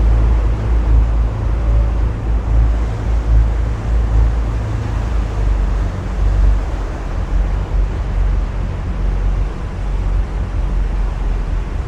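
Boat engine running steadily under way, a constant low rumble with rushing water and wind noise over it.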